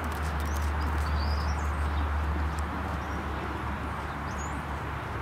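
A lunging horse's hoofbeats, faint and irregular, under a steady low rumble, with a couple of short bird chirps.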